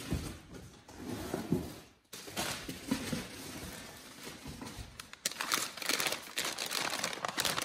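Crumpled newspaper flyer packing paper rustling and crinkling as a wrapped dish is lifted from a cardboard box and unwrapped, the crinkling growing dense and busy from about five seconds in.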